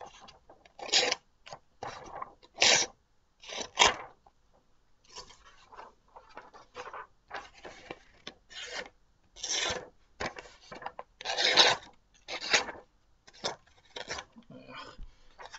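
A dull bushcraft knife blade drawn through scrap paper in a dozen or so short, irregular strokes, the paper ripping rather than being cut cleanly: the edge is too blunt to bite.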